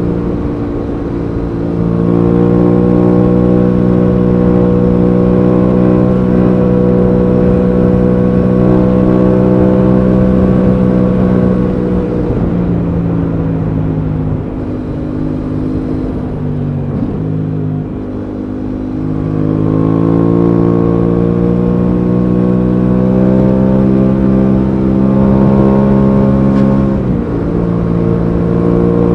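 Aprilia Tuono 660's 659 cc parallel-twin engine under way, heard from the rider's seat. It pulls up in pitch about two seconds in, then runs at a steady cruise. It eases off and sits lower for a few seconds around the middle before pulling again. Near the end the pitch drops suddenly, as on an upshift.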